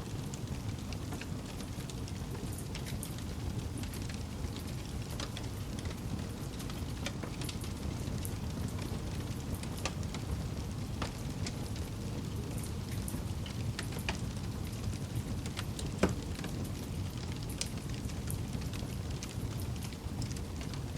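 Campfire wood burning: a steady low rush of flames with scattered light crackles and pops of the burning wood, and one sharper, louder pop about three-quarters of the way through.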